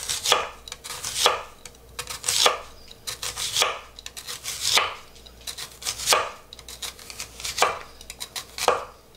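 Kitchen knife slicing an onion thinly on a wooden cutting board: a crisp cut through the onion ending in a knock of the blade on the board, about once a second, with lighter ticks between strokes.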